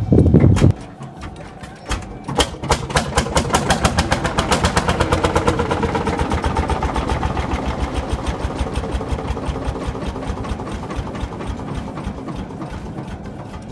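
Lanz Bulldog's single-cylinder two-stroke hot-bulb engine during a start attempt: a loud low thump at the start, then from about two seconds in the engine runs with a fast, even beat of firing strokes that slowly gets quieter.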